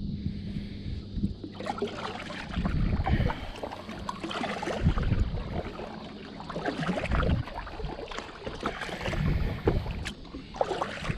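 Wind buffeting the microphone, with water splashing and sloshing around a fishing kayak, starting about a second and a half in.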